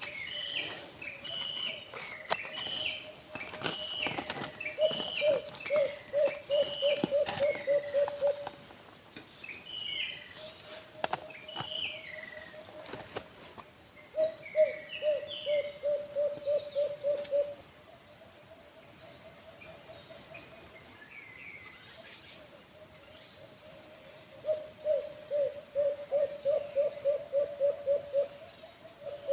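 Alimukon doves cooing in long runs of fast, low, repeated coos, one run after another with short pauses between them. Behind the doves runs a steady high insect drone, with chirps from other birds.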